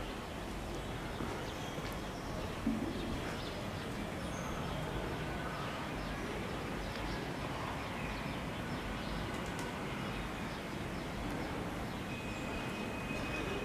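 Steady background hiss with a few faint, short bird chirps and calls scattered through it, and a single soft knock about two and a half seconds in.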